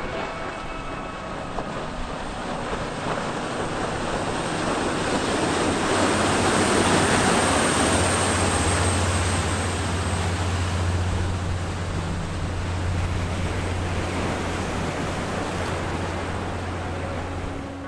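Big sportfishing yachts running at speed: the steady low drone of inboard diesel engines under the rushing wash of their wakes, which swells to its loudest about seven seconds in.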